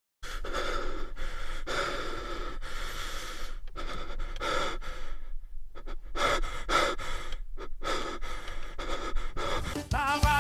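A person breathing hard: a run of noisy, gasping breaths broken by short pauses.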